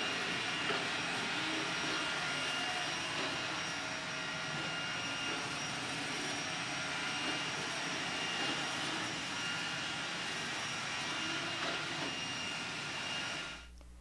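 iRobot Roomba 980 robot vacuum running across a tile floor: a steady whir from its motors with a thin high whine over it. It cuts off abruptly near the end.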